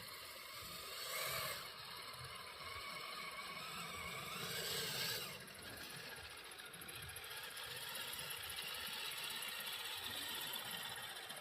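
Kyosho Blizzard RC snowcat running on metal tracks, its electric motor and tracks making a steady mechanical noise that swells louder about a second in and again around four to five seconds in.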